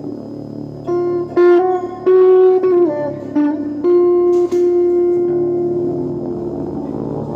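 Guitar playing a slow single-note melody: long sustained notes, a few of them bending or sliding down in pitch, over a low held drone.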